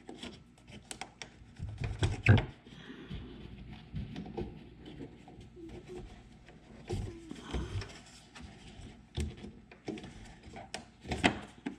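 Rubber dust boot being worked off the back of a 2012 Honda CR-V halogen headlamp housing: rubber rubbing and flexing against plastic, with scattered clicks and knocks of hands at work and one sharp knock about two seconds in.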